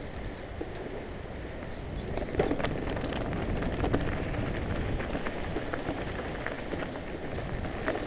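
Mountain bike rolling fast down a rocky dirt singletrack: wind rushing over the microphone, tyres crunching over gravel and stones, and scattered clicks and rattles from the bike, busiest about two to four seconds in.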